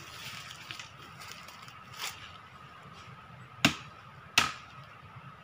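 Blade chopping into a tree trunk to open up a wild bees' nest for its honey: four sharp strikes, spaced irregularly, the first fainter and the last three louder.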